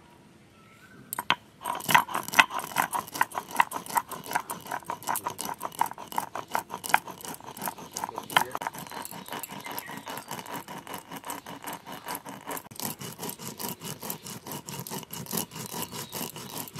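Atap rice being ground by hand to a paste on a stone slab with a grinding stone (shil-nora): quick, rhythmic scraping and knocking of stone on stone, starting about a second and a half in.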